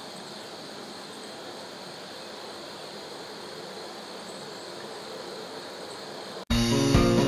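Steady rushing roar from a steam vent on the mountain, a mysterious jet-engine-like 'gō' sound, which the uploader suspects comes from the steaming fumarole known locally as the mud volcano. Background music cuts in abruptly near the end.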